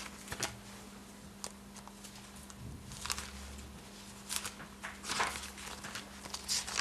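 Bible pages being turned by hand at a lectern microphone: several soft paper rustles spread a second or so apart, over a faint steady hum.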